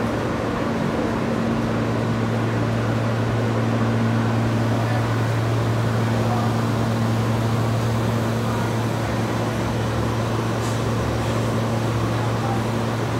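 Steady low hum of a subway train standing at the station, its motors and ventilation running, over a constant even whir.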